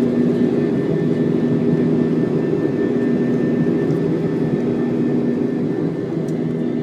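Airbus A320 jet engines and airflow heard inside the passenger cabin during the climb after take-off: a steady drone with a strong low hum and a faint high whine.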